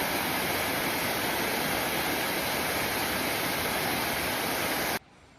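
Waterfall, its falling water rushing in a loud, steady hiss that cuts off suddenly near the end.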